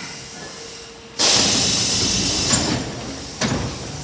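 Subway train's compressed-air system letting out a sudden loud hiss of air, which fades over about a second and a half, followed by a short sharp clunk near the end.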